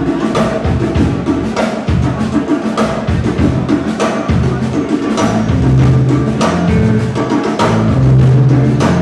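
A ska band playing live, with the drum kit striking a steady beat over a bass line.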